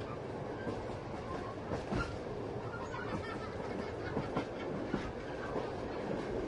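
Passenger train running on the rails: a steady rumble with irregular clicks and knocks from the wheels.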